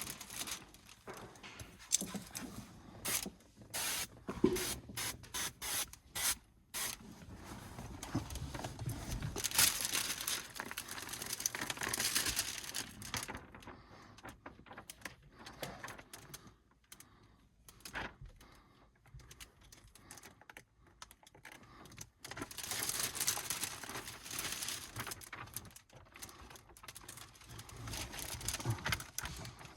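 Window-tint installation work on the glass: a run of sharp clicks and knocks, then two longer stretches of hissing and rubbing, one about nine seconds in and one about twenty-three seconds in.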